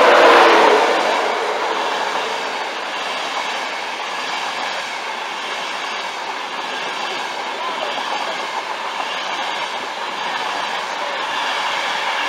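Class 91 electric locomotive passing close by, loudest in the first second, followed by the steady rush and wheel noise of its Mk4 coaches rolling past.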